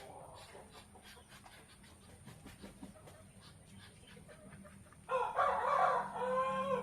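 A rooster crowing once, one drawn-out crow about five seconds in, after a few quiet seconds with faint ticks.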